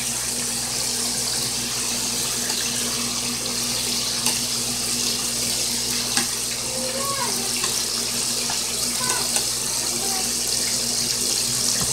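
Chicken pieces deep-frying in hot oil in a pot, a steady, dense crackling sizzle, with a couple of sharp clicks partway through.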